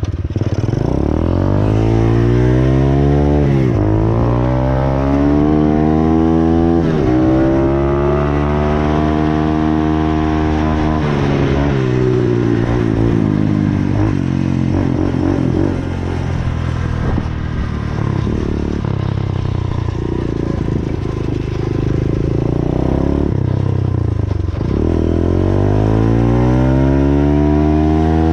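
Small dirt bike's engine accelerating through the gears. The pitch climbs and drops at each shift, three times in the first ten seconds, runs lower and more unevenly through the middle, then climbs again near the end.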